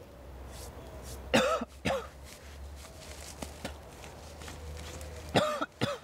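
A man coughing and retching in two bouts about four seconds apart, each bout two harsh heaves in quick succession, over a low steady hum.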